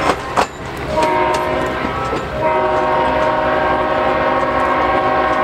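EMD MRS-1 diesel locomotive's air horn sounding a chord from the departing train: a short blast about a second in, then a long blast from about two and a half seconds on. Two sharp clacks of railcar wheels come at the start.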